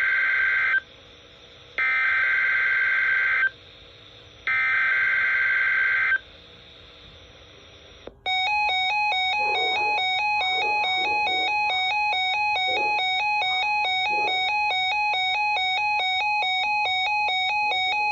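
NOAA Weather Radio SAME alert header: three short bursts of warbling digital data tones about a second apart. About eight seconds in, weather alert radios start sounding their alarm, a rapidly alternating electronic beeping that keeps going.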